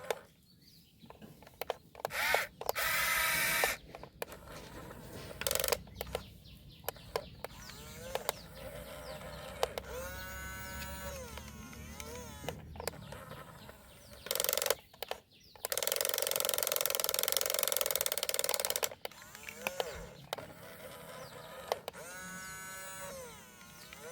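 Small electric motors and gearboxes of a remote-control excavator whining, the pitch rising, holding and falling again and again as the arm and bucket move, with scattered clicks. Two longer stretches of loud hiss-like noise, about two seconds in and again around sixteen seconds in.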